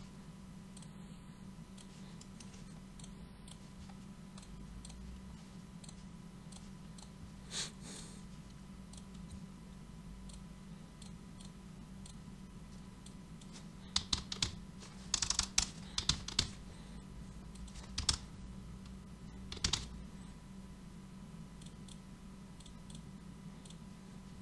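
Typing on a computer keyboard: a lone keystroke, then a run of quick key taps in several short bursts a little past the middle. Under it runs a steady low hum.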